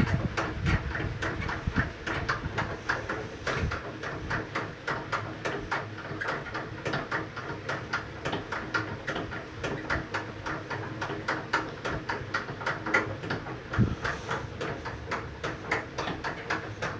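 Centrifugal honey extractor spinning a load of comb frames, giving a rapid, even rattle of about five or six clicks a second over a steady hum as the frames whirl and fling honey against the metal drum.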